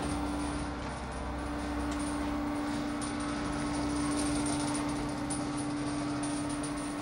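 A steady hum holding one low-middle note, which comes in at the start, over a constant hiss.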